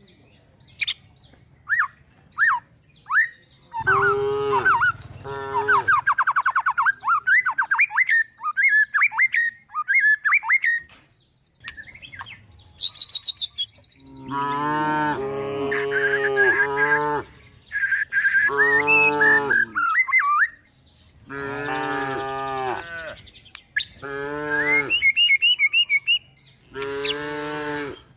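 Cows and calves mooing in a run of calls, coming thickest in the second half, with small birds chirping between and over them.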